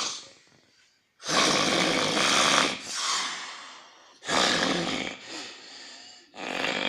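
Snoring: a run of long snores of about a second each, separated by short pauses, like slow sleeping breaths.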